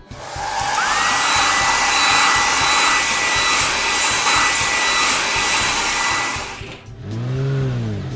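Car-wash blow dryer sound effect: a loud steady rushing of air with a thin whine that glides up about a second in and then holds, cutting off near seven seconds. Right after, a car engine revs up and back down as the car drives off.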